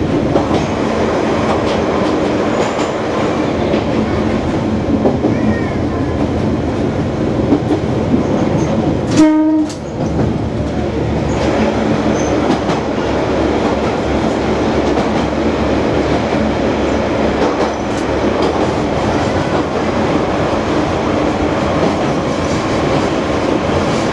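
Diesel railcar running on rails, its engine and wheel-on-rail noise heard from the cab and closed in by tunnel walls. About nine seconds in the railcar gives one short horn blast.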